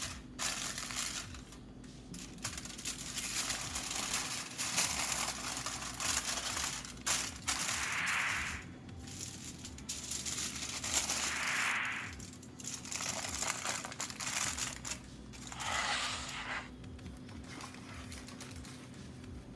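Aluminium foil crinkling and crackling in irregular spells as hands fold and crimp it around halved bell peppers to wrap them.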